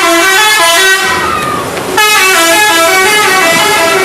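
Bus telolet horn playing a quick tune of stepped notes: one loud phrase that ends about a second in, a short pause, then a second phrase from about two seconds in.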